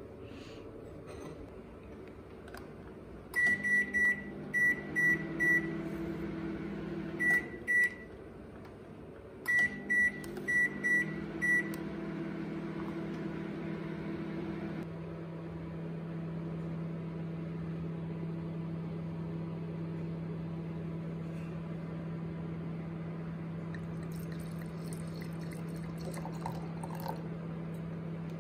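Contempo microwave oven being set and run: several runs of short, high beeps, then its steady low hum while it heats.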